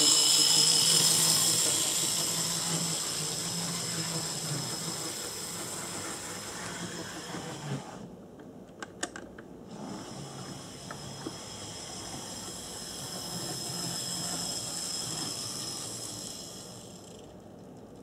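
Varney Docksider HO scale model locomotive running on the track: the small electric motor whines and the drive gear and wheels rattle, loudest at first and fading as it moves away. A few sharp clicks come about halfway through.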